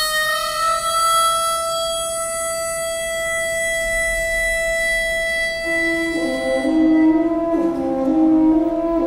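Harmonica holding one long, high wailing note. About six seconds in, the orchestra enters beneath it with low held chords.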